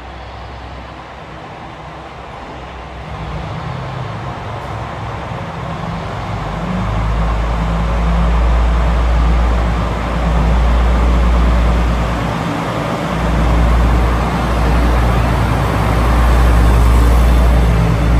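A pair of KiHa 120 diesel railcars rolling into the platform, the diesel engine sound growing steadily louder as the cars approach and draw alongside.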